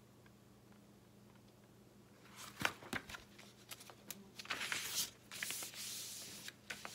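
Pages of a paper picture book being turned and handled: a run of rustles and soft knocks that starts about two and a half seconds in, after a quiet start.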